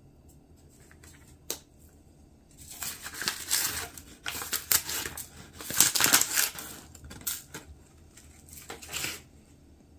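A foil spice packet crinkling and rustling as it is handled and opened, in irregular bursts over several seconds, with a single click shortly before.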